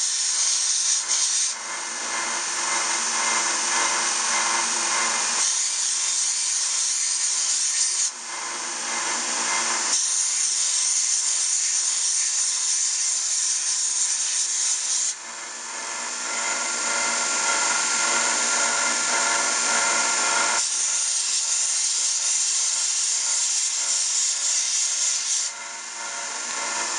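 A small benchtop belt sander runs steadily while a walrus tusk is pressed against its belt. The grinding of the ivory swells and drops back in stretches of several seconds as the tusk is pushed onto the belt and eased off.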